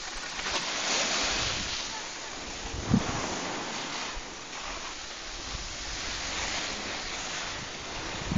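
Skis sliding and scraping over snow, with wind buffeting the microphone; the hiss swells and fades in waves. One short knock about three seconds in.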